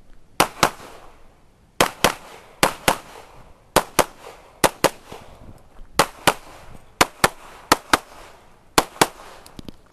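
Springfield XD(M) pistol fired in rapid double-taps: pairs of shots about a quarter second apart, about nine pairs in quick succession, with fainter pops near the end.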